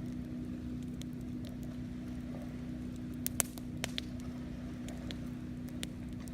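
Campfire burning with scattered sharp crackles and pops, the loudest a little past halfway. Under it runs a steady low hum.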